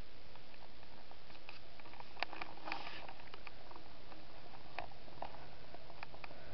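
Quiet pause with a steady hiss and scattered small clicks and rustles, a few of them grouped about two seconds in and again near the end. A faint low steady hum comes in near the end.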